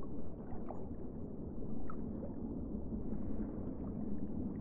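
A muffled, steady water ambience sound effect, a low rumble with faint gurgles.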